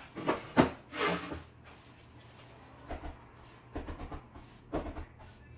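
Flooring planks knocked and tapped into place on a wooden floor: a string of sharp, irregular knocks, the loudest about half a second in, with more scattered through the rest.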